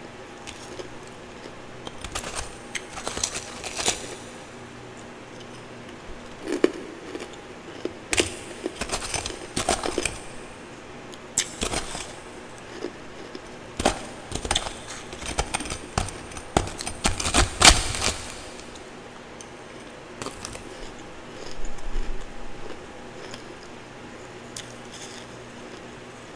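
Twice-refrozen powdery ice crunching close to the microphone as it is bitten and chewed, with a metal spoon scraping and scooping through the icy frost in a plastic tub. A quick run of sharp crunches and scrapes, thinning out near the end.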